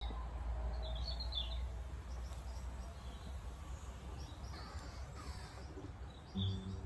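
Outdoor background: a low steady rumble with small birds chirping a few times. Near the end, the strings of a nylon-string classical guitar sound briefly as it is settled for playing.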